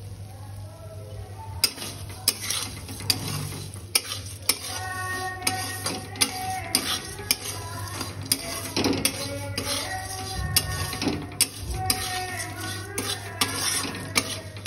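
A metal spatula stirring and scraping a dry flattened-rice (poha chivda) mix around an iron kadhai, with sharp metal-on-metal clinks about every half second to second, starting a little over a second in.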